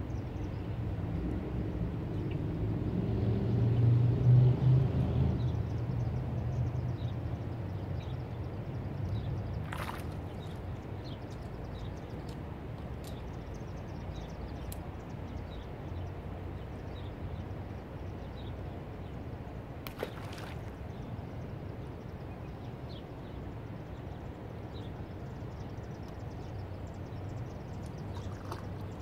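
Outdoor background with a low engine-like hum that swells to its loudest about four seconds in and then fades away. Two sharp clicks sound about ten seconds apart.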